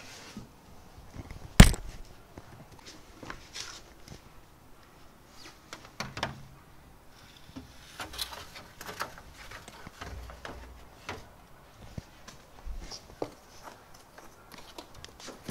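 Unpacking noises: a foam sheet and acrylic panels lifted out of a cardboard box and set down, with scattered rustles and knocks. The sharpest knock comes about a second and a half in.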